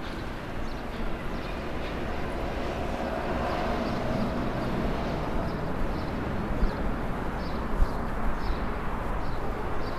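Street ambience: a steady rumble of traffic, with a vehicle engine swelling and fading about midway. Light footsteps tick about twice a second through the second half.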